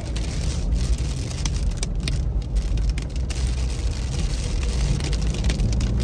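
A car driving, with a steady low rumble of engine and road noise.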